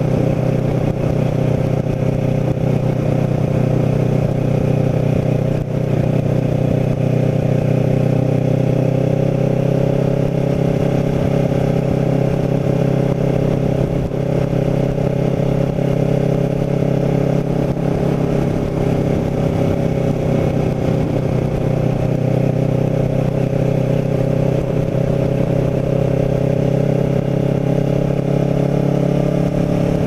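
Kawasaki Ninja 650R's parallel-twin engine running at a steady cruise, its pitch shifting only slightly.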